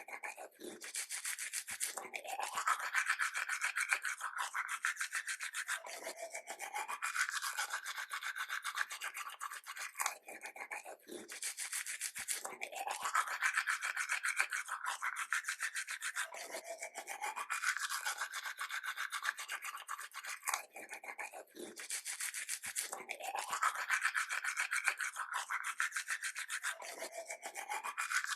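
Toothbrush scrubbing teeth with rapid back-and-forth strokes, a wet scratchy rasp that comes in stretches of a few seconds with short pauses between them.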